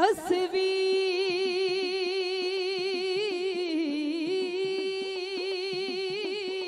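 Dhadi singing: one long held vocal note with vibrato, glided up into at the start and dipping briefly about four seconds in, over the pitch-bending strokes of dhadd hand drums.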